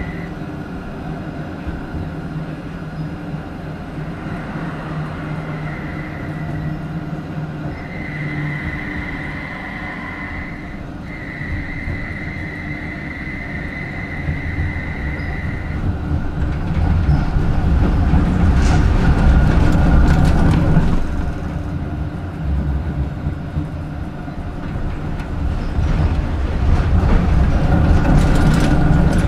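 Rhein-Neckar-Verkehr M8C-NF tram running, with a steady high whine through the first half. After that comes louder rumbling rail noise that swells twice, once about two-thirds of the way through and again near the end.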